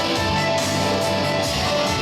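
Song accompaniment with guitar playing steadily; no singing is heard.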